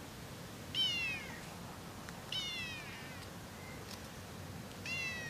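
Cat meowing three times, short high calls that each fall in pitch.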